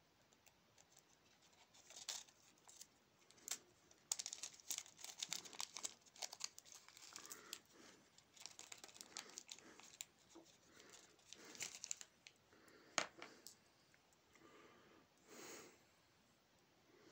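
Faint, irregular crinkling of a small plastic zip-lock bag being opened and handled, with one sharper click late on.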